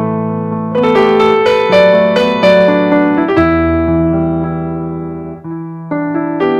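Background piano music: a gentle melody over held chords, with a pause in the chords about five and a half seconds in before a new phrase begins.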